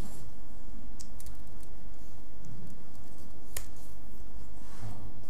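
A few separate keystrokes on a laptop keyboard, sharp clicks about a second in and again after about three and a half seconds, over a steady low room hum.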